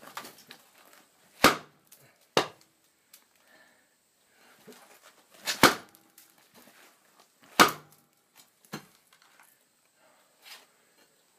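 Four heavy, irregularly spaced impacts with a few lighter knocks: a Toyota pickup axle shaft is driven down onto a piece of asphalt shingle on a concrete slab to force the axle bearing off without a press.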